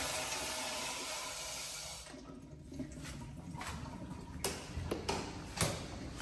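The end of a public-restroom toilet flush: the rush of water dies away over about two seconds, then a few faint clicks and knocks.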